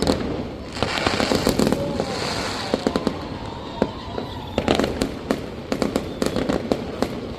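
Fireworks going off in a rapid series of sharp bangs and crackling. A dense crackling stretch starts about a second in, and further clusters of bangs come around five and six seconds in.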